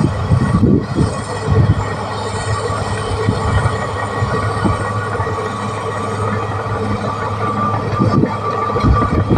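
Caterpillar D6R XL bulldozer working: its diesel engine runs steadily under load while the steel tracks clank irregularly, over a steady high whine that grows stronger near the end.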